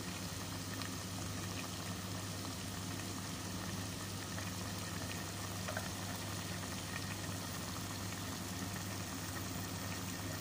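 Chicken pieces in a little water coming to the boil in a large aluminium pot: steady bubbling with scattered small pops, over a steady low hum.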